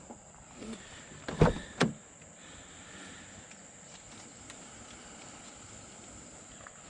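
Two short knocks less than half a second apart, about a second and a half in, then only a faint steady background.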